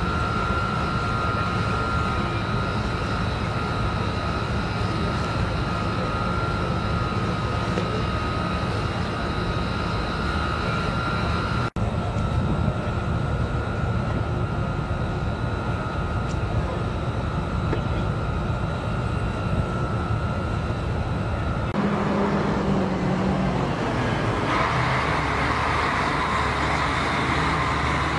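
Steady machinery drone with a high, unwavering whine over it. It breaks off for an instant about halfway through. Near the end it changes to a different, brighter noise without the whine.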